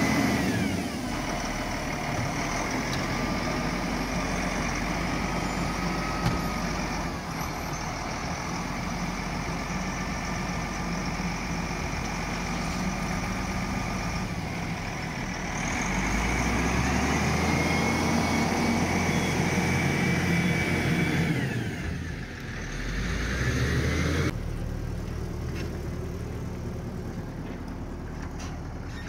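Volvo BM wheel loader's diesel engine running under load, revving up and down as it works the bucket, with pitch glides that rise and fall. About 24 seconds in it cuts abruptly to a quieter, steadier engine note.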